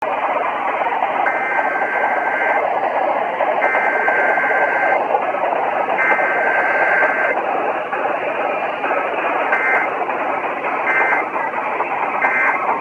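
Emergency Alert System Required Weekly Test heard over a radio through steady static hiss. Three warbling two-tone SAME data bursts carry the alert header, then three short end-of-message bursts follow, with no attention tone.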